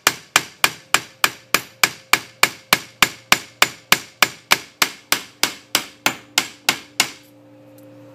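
Ball-peen hammer striking a brass hinge laid on the steel anvil of a bench vise: a steady run of sharp metallic blows, about three and a half a second, that stops about seven seconds in. The blows peen the hinge's edge to thin it and move the metal.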